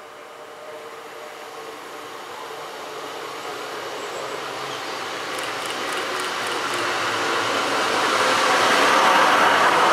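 Class 153 and Class 150 diesel multiple units arriving into a station: a steady rumble of engines and wheels on rail that grows louder throughout as the train approaches, loudest as the carriages draw past near the end. A short run of faint high ticks comes about halfway through.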